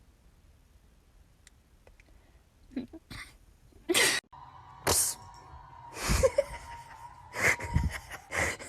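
A run of short sneezes, about seven in quick succession roughly a second apart, starting after a quiet few seconds.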